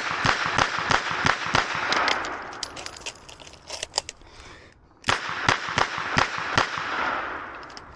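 Smith & Wesson 929 9mm revolver fired in quick strings during a timed stage. A fast run of shots, a short break about five seconds in, then a second run of shots.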